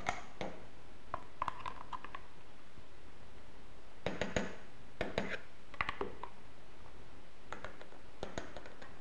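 Metal spoon scraping and clinking against glass as thick sweet potato puree is spooned into a small glass jar. The sound comes as scattered clusters of short clicks and scrapes, in three groups.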